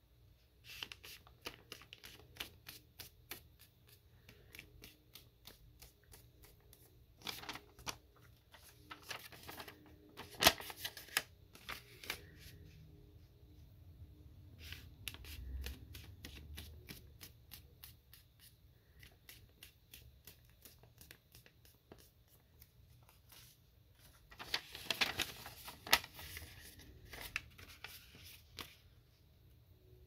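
Squares of thin origami paper being handled and folded diagonally in half, with crisp rustling and many small ticks and crackles as the sheets flex and the creases are pressed. Louder bursts of rustling come a few times, about a third of the way in and again near the end.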